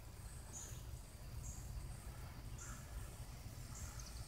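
Faint outdoor ambience: short high-pitched chirps repeating about once a second, over a steady low rumble.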